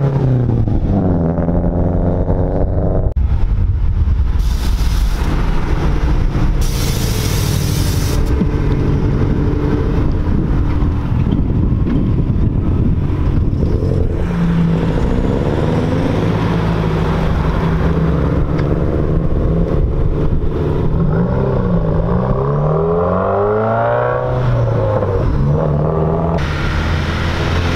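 Cars, led by a Subaru Impreza WRX, driving past one after another, their engines revving up and dropping in pitch through gear changes. Two short bursts of hiss come about five and seven seconds in.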